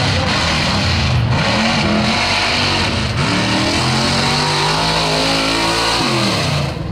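Mud truck's engine revving hard and unsteadily, its pitch climbing and dropping over and over, with the revs falling away near the end.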